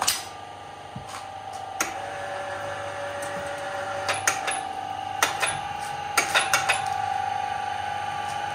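Sharp metal knocks and clanks as a steel hook bar and hand tool work a log into place between the spindles of a veneer peeling machine, with a quick run of four knocks about two-thirds through. A steady machine hum runs underneath.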